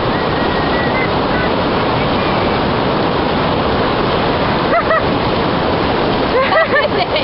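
Steady rush of river rapids, whitewater running loudly. A voice calls out briefly about five seconds in and again near the end.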